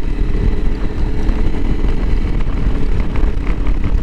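Honda CRF300L Rally's single-cylinder engine running steadily while riding at a constant pace, heard as a continuous low rumble.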